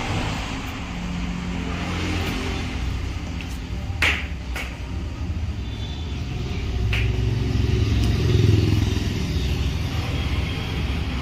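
A motor engine runs steadily with a low rumble that swells near the end. Two sharp clicks come through it, about four and seven seconds in, from the metal tool being worked into the tyre tread.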